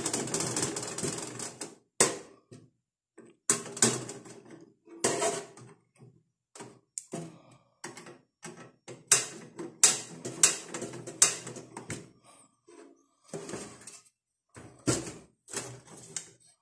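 Phillips screwdriver working the motherboard mounting screws in a steel PC case: a run of irregular metal clicks and taps, with a rasping scrape for about the first two seconds.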